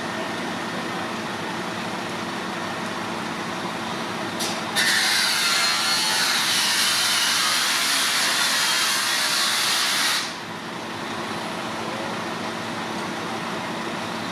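Fire appliance engine running steadily. Over it, a loud hiss starts about five seconds in, holds steady for about five seconds, then cuts off sharply.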